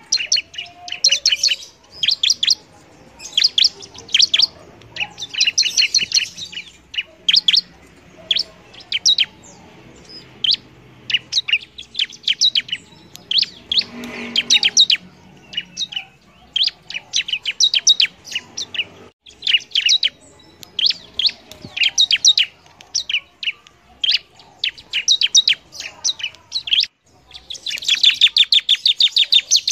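Bar-winged prinia (ciblek) singing energetically: quick, high chattering phrases of sharp chips repeated with short pauses, the longest and densest burst near the end.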